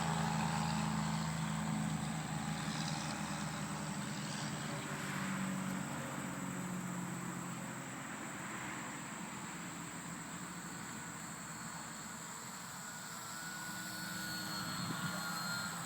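Radio-controlled 3D aerobatic model airplane in flight, its motor and propeller droning steadily. The sound fades as the plane moves away and grows louder again near the end.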